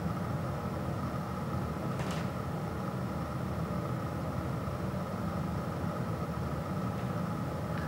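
Steady low hum of background noise, with one faint short click about two seconds in.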